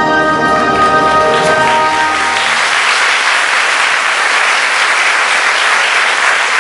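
The music's final held chord ends about two seconds in as an audience breaks into applause, which carries on steadily.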